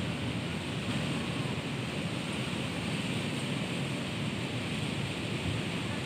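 Strong wind blowing through trees, rustling the leaves in a steady rush of noise.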